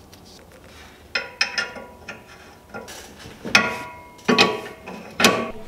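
Metal clinks and knocks of tools and parts being handled in an engine bay: a run of sharp strikes, several with a short metallic ring, the loudest about three and a half, four and a half and five seconds in.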